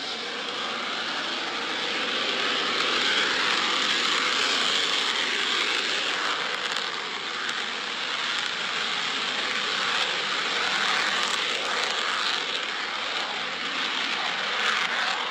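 Jet fighter engine at takeoff power, a steady rushing noise that builds over the first couple of seconds and then holds.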